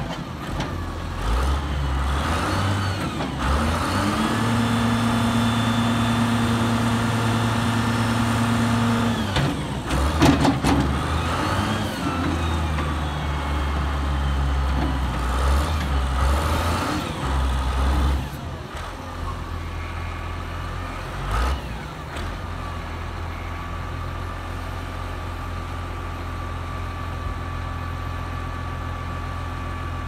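John Deere 544E wheel loader's diesel engine running while the loader arm and bucket are worked through the hydraulics. The engine holds a steady, higher note under load for several seconds, with a brief clatter about ten seconds in. It then settles to a quieter, steady run for the last ten seconds or so.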